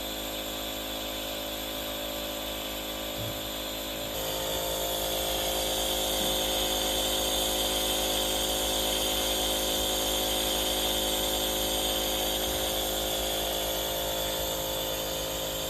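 A respirator machine's pump running steadily with a hiss, delivering a dog's breathing treatment for kennel cough. It gets louder about four seconds in.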